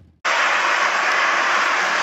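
Steady rushing noise of a bicycle ride: wind and road noise on the microphone, cutting in abruptly about a quarter of a second in.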